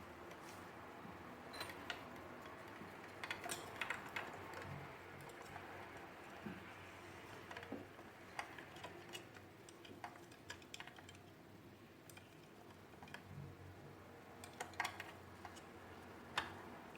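Irregular light clicks and taps of plastic vacuum-cleaner parts being handled and fitted together, over a faint background hiss. The clicks come in small clusters, with the sharpest one near the end.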